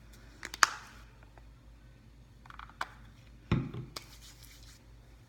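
Hair lotion bottle being handled close to the microphone, with a few sharp clicks about half a second in, then hands rubbing the lotion together, with a dull thump about three and a half seconds in.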